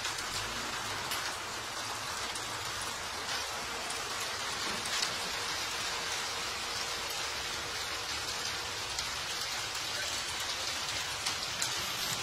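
Heavy hail falling with rain: a steady, dense hiss, dotted with many sharp ticks of hailstones striking hard surfaces.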